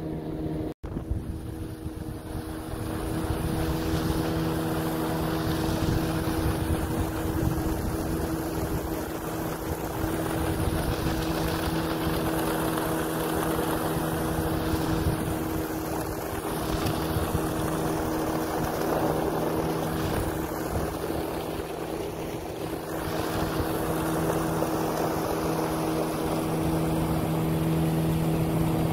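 An engine running at a steady pitch while moving, with wind rushing over the microphone that swells and eases. The sound cuts out for an instant just under a second in.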